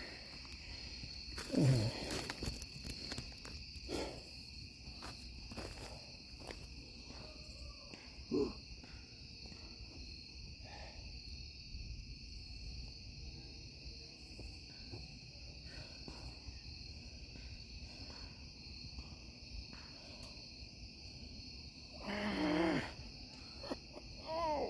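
Insects chirring in a steady chorus, held on two high pitches. Over it come a few short grunts of effort from a man doing chin-ups on a bar, the longest near the end.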